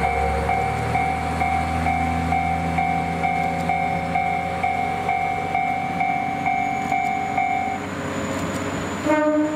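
JR KiHa 40 diesel railcar pulling away, its engine running, while an electronic warning bell rings in steady beeps about two to three times a second and stops about eight seconds in. Near the end the railcar gives one short blast of its horn.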